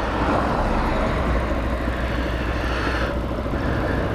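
Hawk 250 motorcycle running at low speed, a steady low engine hum under wind noise on the microphone; the hiss eases about three seconds in.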